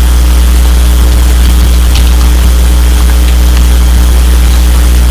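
Loud, steady low electrical hum with evenly spaced overtones: mains hum running through the recording. A few faint keyboard clicks sound over it around the middle.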